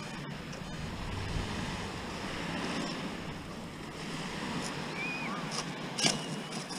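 Steady wind and surf noise on a beach, with wind buffeting the microphone. About six seconds in there is a single sharp click, followed by a short steady high tone.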